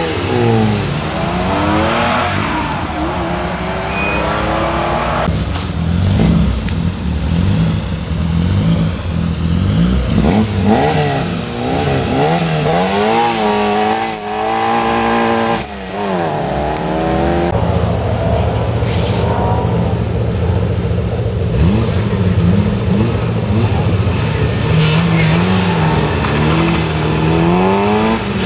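Rally car engines at a start line, revving and idling. Around the middle one engine is revved up and down hard several times, then a steady idle hums on while throttle blips continue.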